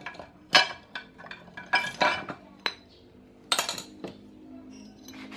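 Metal clutch parts of a Yamaha F1ZR clinking and knocking together as they are handled, with the clutch boss being checked for its bearing: about half a dozen sharp clinks, the loudest just over half a second in and again about three and a half seconds in.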